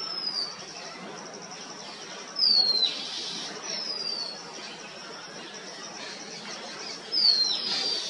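Asian green bee-eater calling: four short whistled notes that each fall in pitch, spaced a second or more apart, the second and the last loudest.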